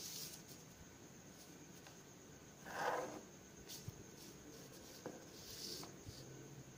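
Quiet sounds of drawing on paper: a clear plastic ruler slid across and set down on a sheet of paper, and a pen stroking along it. A louder rustle about three seconds in, then a few light clicks.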